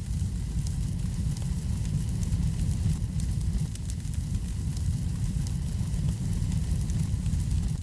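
Wood fire burning in a fireplace: a steady low rumble of the flames with many small crackles and pops scattered throughout.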